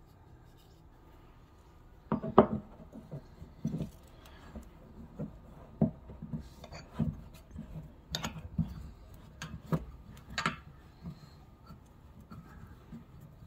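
A Teflon-taped brass spigot being handled and threaded by hand into a rain barrel's outlet fitting: an irregular run of light knocks, clicks and rubbing, starting about two seconds in.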